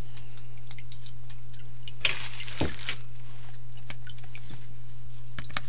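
Steady low electrical hum of running aquarium equipment, with scattered light ticks and clicks from a handheld plastic tub and a brief rustling knock about two seconds in.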